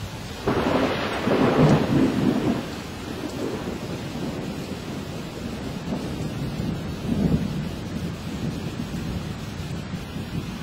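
Thunder from a nearby lightning strike: a sudden clap about half a second in that rumbles on for about two seconds, then a fainter rumble around seven seconds in, over steady rain.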